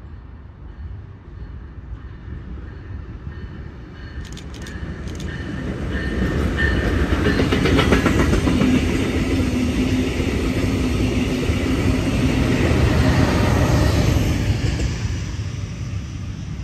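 Brightline passenger train, a Siemens Charger diesel locomotive at each end with Venture coaches, passing at speed. The rumble of its wheels on the rail builds from a few seconds in, holds loudest through the middle and fades away near the end.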